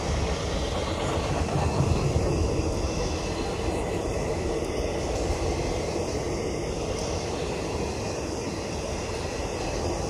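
Passenger coaches of an express train rolling past on the track: a steady rumble of steel wheels on the rails.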